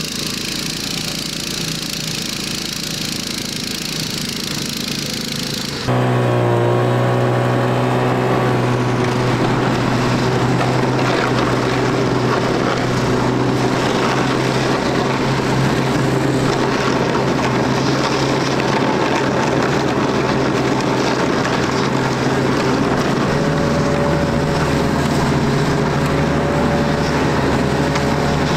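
Engine of a motorized towing sled (motor dog) running steadily while pulling loaded sleds over the ice. About six seconds in it turns suddenly louder, then holds a steady drone.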